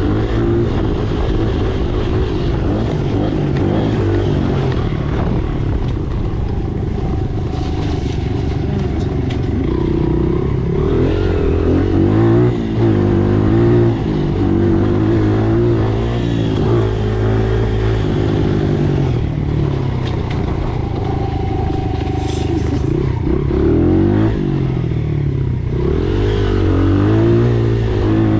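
Dirt bike engine running throughout, its pitch rising and falling again and again as the throttle is opened and closed.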